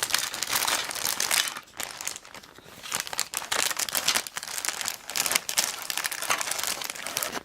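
Plastic bag crinkling and rustling as hands work a battery-powered light through it. There are two long stretches of crinkling, with a quieter pause of about a second between them.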